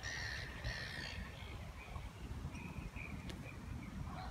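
Birds calling: a few clear high calls in the first second, then fainter short calls about three seconds in, over wind rumbling on the microphone.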